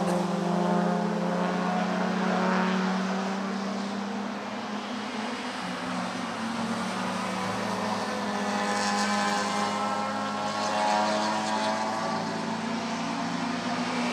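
Four-cylinder engines of small 1300 cc touring cars (Lada, Samara, Zastava) running hard on a wet circuit: a steady engine drone whose pitch shifts a little as the cars come on. A hiss of tyres throwing up spray from the wet track comes in around the middle.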